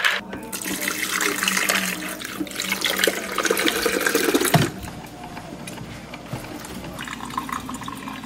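Running water, as from a tap, for about four and a half seconds, then it stops. A quieter stretch with a few light clicks follows.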